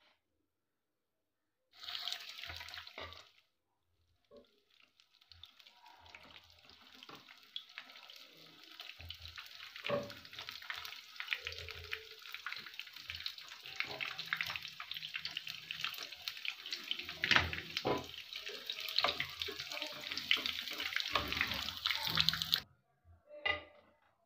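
Spring rolls deep-frying in hot oil in a pan: steady sizzling with many small pops and crackles, plus a few louder knocks from a spatula turning them. The sizzle starts about two seconds in, stops briefly, returns, grows louder and cuts off suddenly near the end.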